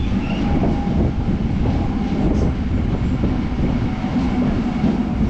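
MEMU electric commuter train running along the line, a steady rumble of the coach with a faint steady whine above it.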